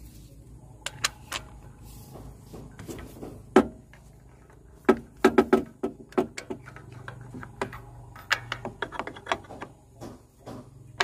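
Metal hand tools clicking and clinking against the engine as a spark plug is worked loose with a spark plug wrench: scattered sharp clicks, the loudest about three and a half seconds in and a quick run of them around five seconds in, over a faint steady hum.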